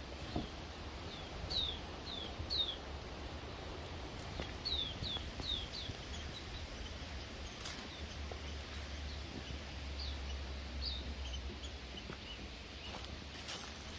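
A bird calling in short, high chirps that slide downward, in quick runs of three to five, over a steady low rumble.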